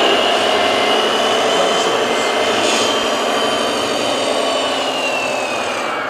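Electric drive motors and gearboxes of 1:14-scale radio-controlled trucks whining steadily over a dense drone, one high whine sliding slowly down in pitch near the end.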